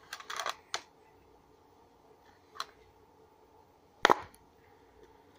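Tackle box and lures being handled: a short clatter of clicks at the start, a single click in the middle, and a louder sharp clack near the end.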